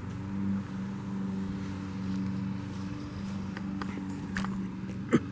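An engine running at a steady speed, with a single sharp knock about five seconds in.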